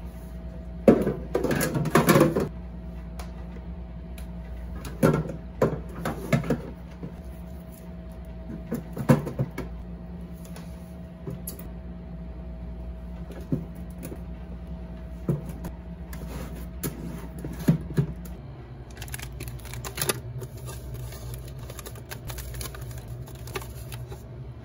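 Groceries and plastic containers being set down and shuffled on the shelves of an open refrigerator: scattered knocks, clunks and plastic rustling, over a steady low hum.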